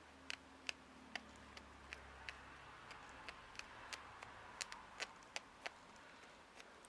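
Faint, irregular small clicks and ticks as threads are picked out of a scrap of fabric by hand, against near silence.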